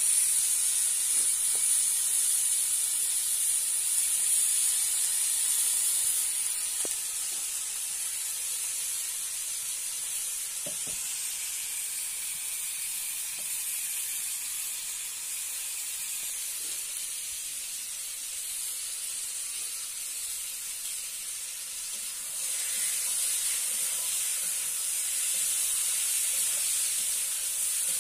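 Pieces of raw meat sizzling in hot oil with onion and garlic paste in a black iron kadai: a steady frying hiss. It is louder for the first several seconds, eases off, and grows louder again a few seconds before the end.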